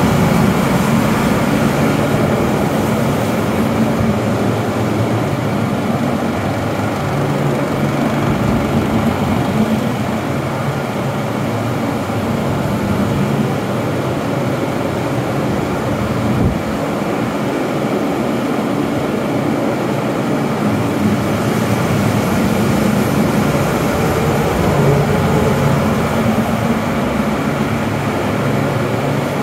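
Several yellow axial air-mover fans running together, a steady loud rush of moving air with a low hum, circulating hot air during a bed bug heat treatment.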